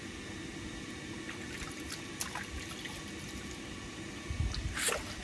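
Water running and trickling steadily over stones, with a few small clicks, and a brief low rumble near the end.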